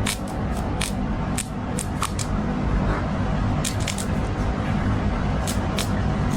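Irregular sharp clicks and snips of hand tools and small hardware worked at a wall light switch being taken out, over a steady low rumble.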